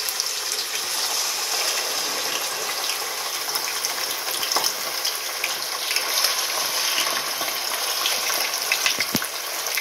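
Raw chicken legs frying in hot oil and ghee in a pot: a steady sizzling hiss with constant small crackles and pops.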